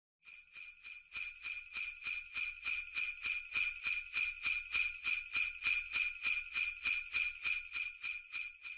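Jingle bells shaken in a steady rhythm, about three shakes a second. The jingling rises from faint to full over the first second and stops just before the end.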